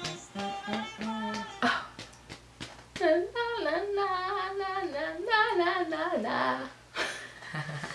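A woman singing along in a strong voice, holding long wavering notes from about three seconds in to just past six.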